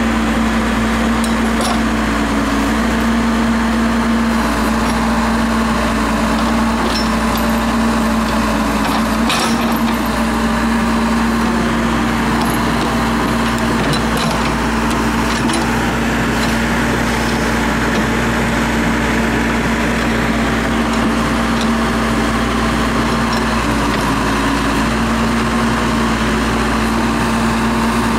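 Case 580L Turbo backhoe's turbocharged diesel engine running at a steady speed, with one constant droning pitch. A single sharp knock comes about nine seconds in.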